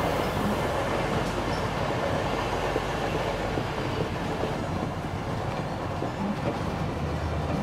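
Steady train running noise with a clickety-clack, as the toy locomotive rolls along its track.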